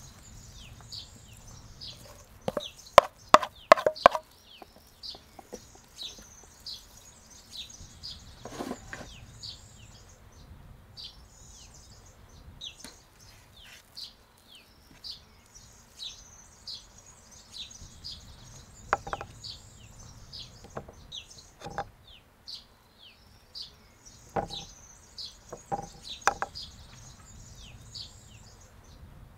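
A wooden spoon knocking and scraping against an enamel bowl and a metal cake tin as thick batter is scraped out, loudest in a quick run of knocks a few seconds in, with a few more single knocks later. Small birds chirp steadily throughout.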